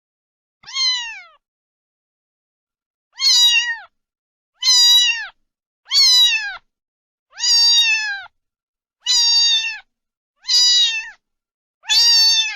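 A domestic cat meowing repeatedly: about eight meows, each under a second long and falling in pitch at the end, one roughly every second and a half.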